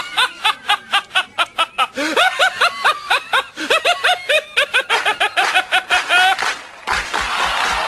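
A person snickering in a rapid run of short, high-pitched laughs, about four or five a second. Music with low thumps takes over near the end.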